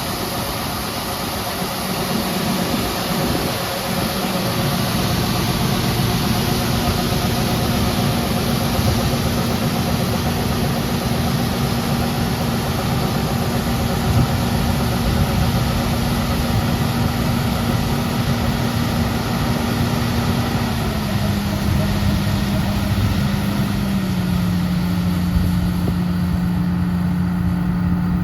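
Engine of farm harvest machinery running steadily, its pitch stepping down twice in the last third as it slows.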